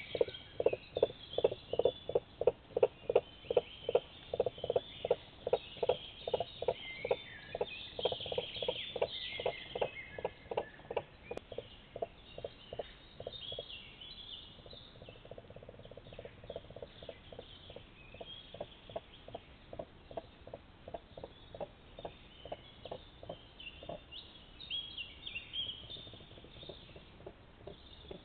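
Common cranes giving a long series of short, low calls, about two a second, strongest in the first half and weakening later. Small songbirds sing high above them.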